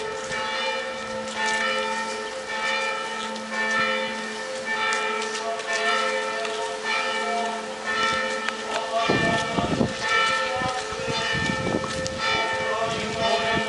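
Church bells tolling for a funeral: several bells struck over and over, about once a second, their ringing tones overlapping. From about nine seconds in, lower irregular sounds join in under the bells.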